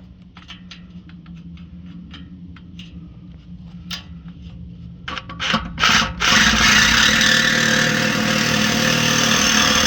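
Light scraping and clicking, then a few loud jolts about five seconds in as a power saw with a steel-cutting blade bites into the steel exhaust pipe, which it then cuts steadily and loudly to the end.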